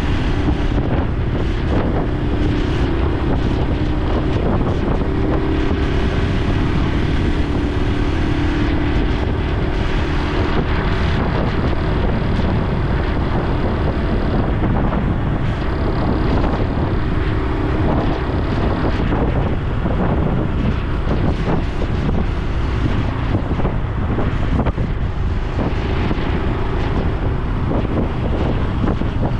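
Honda Super Cub C125's air-cooled single-cylinder 125 cc engine and exhaust running steadily while riding, mixed with heavy wind noise buffeting the microphone.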